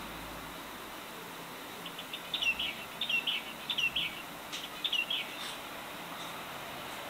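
Pet bird singing a quick run of about four short, repeated chirped phrases lasting roughly three seconds, over a steady hiss.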